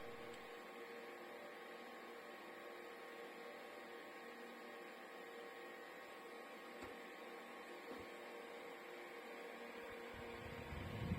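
OCOOPA 5-inch battery-powered USB desk fan running steadily and faintly: a soft airy hiss with a few steady whining tones from its small motor. A louder, low rushing noise comes in near the end.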